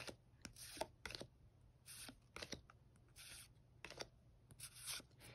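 Pokémon trading cards being flipped through by hand: faint, brief swishes and light taps of card stock sliding over card, one after another.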